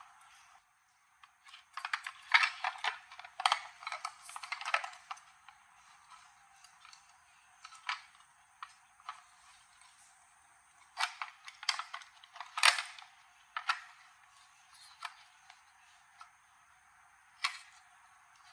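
Irregular clicks and light clatter from handling small hard parts during a toaster repair, in two bursts of rapid clatter with scattered single clicks between them and one more near the end.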